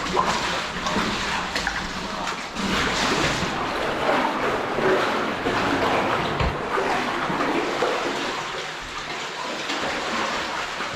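Water of an underground cave stream splashing and running, in an uneven, irregular wash of sound.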